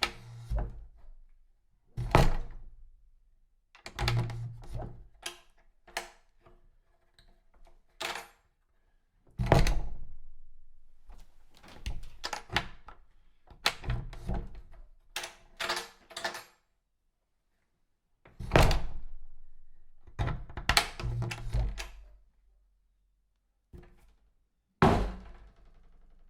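A door being opened and closed again and again: a series of sharp clicks and knocks from the handle and latch, with heavier thuds at irregular intervals, each ringing on briefly.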